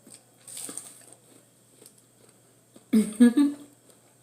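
A person eating close to the microphone, with soft chewing and mouth noises, and a short burst of voice about three seconds in.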